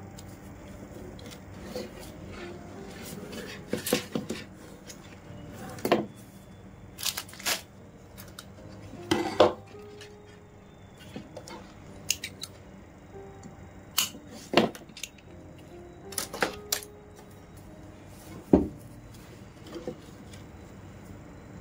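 Hand-weaving with plastic (PE) rattan strands: irregular sharp clicks and knocks, one every second or two, as the stiff strands are pulled, bent and tapped against the basket.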